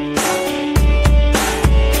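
Background music with a steady beat: heavy bass drum hits and drum strikes under sustained pitched notes.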